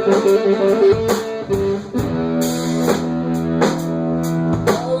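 Blues band playing without vocals: an electric guitar plays a quick repeating riff, then about two seconds in settles into held notes, over drum kit strokes about once a second.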